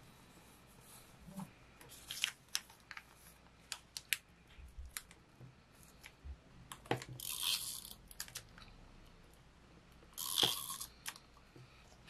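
Hands handling paper on a spiral-bound journal page: scattered light taps and rustles, then two short bursts of paper tearing from a paper tea-bag envelope, about seven seconds in and again near the end, the second the louder.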